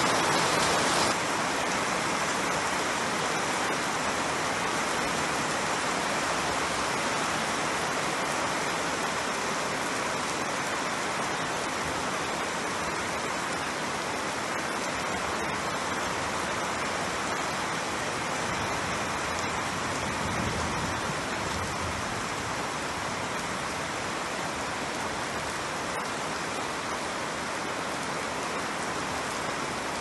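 Steady rain falling, an even hiss of many drops, a little louder for about the first second.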